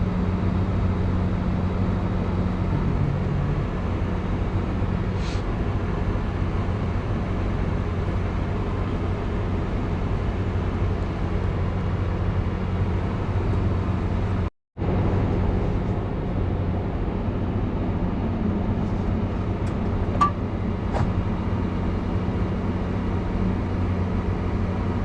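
Farm tractor engine running steadily under load as it pulls a heavily loaded grain cart, a continuous low drone. The sound cuts out completely for a moment about halfway through.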